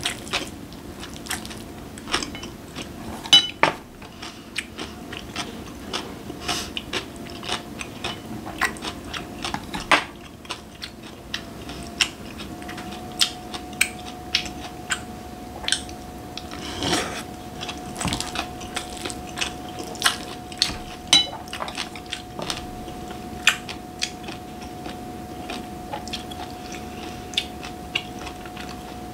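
Close-up eating sounds: chewing and crunching mouthfuls, with a spoon and chopsticks clicking against a glass bowl at irregular moments. A faint steady hum joins about halfway through.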